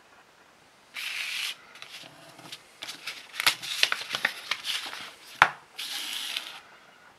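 Folded paper leaflet being handled and turned over: a sliding rustle, then a run of crinkles and crackles with one sharp snap of the paper, then another sliding rustle.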